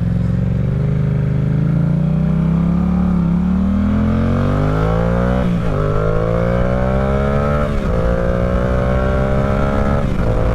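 Yamaha R7 sport bike accelerating through the gears. Its engine note climbs steadily and drops sharply at three upshifts, about five and a half, eight and ten seconds in.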